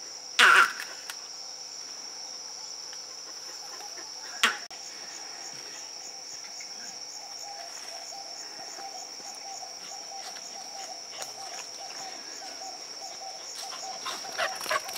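Steady high-pitched insect chirring, like crickets, with a fainter rhythmic chirring lower in pitch. A loud call sweeps downward in pitch about half a second in, a sharp click follows a few seconds later, and a few short calls come near the end.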